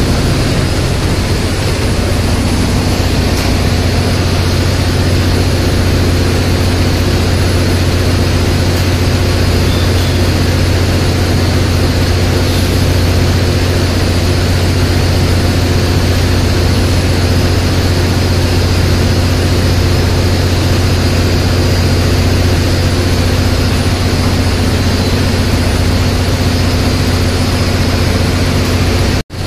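Steady, loud drone of a ship's engine-room machinery: a deep hum with steady tones over it, broken only by a very short dropout near the end.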